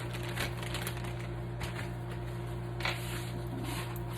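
Light kitchen handling noises: a few short clicks and knocks, with faint crackling, over a steady low hum.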